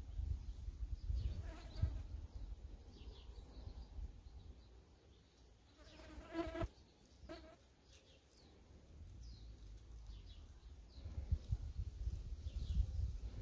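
Outdoor ambience: wind rumbling on the microphone, heaviest near the start and end, with scattered high bird chirps and a short pitched buzz about six seconds in.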